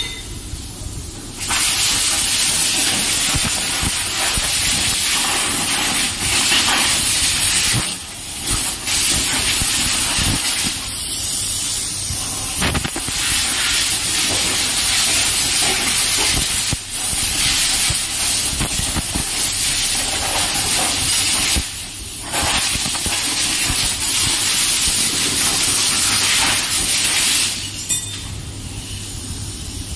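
A high-pressure spray jet hissing hard against the Hero Super Splendor motorcycle in long bursts, breaking off briefly every few seconds as the gun's trigger is let go, over a steady low machine hum. It is the wash at the start of the bike's first service.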